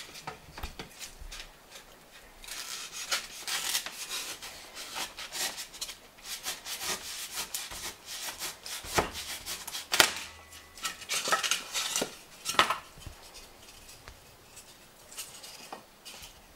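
Large kitchen knife sawing and scraping through a block of white foam, a run of irregular rasping strokes with sharper clicks about nine and ten seconds in.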